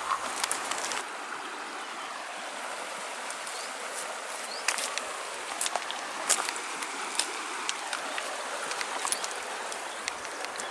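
Shallow river flowing over a gravel and cobble bed: a steady rushing hiss, with scattered short clicks over it.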